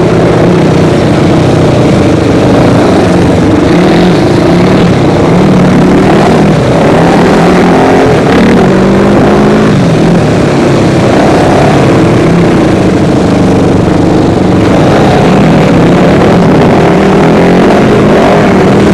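Off-road vehicle engine running loud and close, its pitch rising and falling as it speeds up and eases off along a rough dirt trail.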